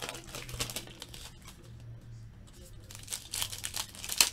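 Foil wrappers of 2016 Diamond Kings baseball card packs crinkling and tearing as they are opened by hand, in spurts near the start and again near the end, quieter in between.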